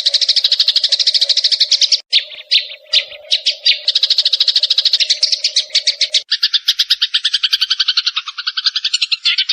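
Sparrows chirping in a rapid, even stream of short notes, about ten a second. The stream turns choppy and irregular after about two seconds, then switches abruptly to a lower-pitched run of chirps at about six seconds.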